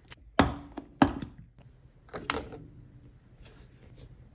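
Plastic Greek-yogurt strainer container being handled: two hollow thunks about half a second apart in the first second, then a lighter knock a little after two seconds.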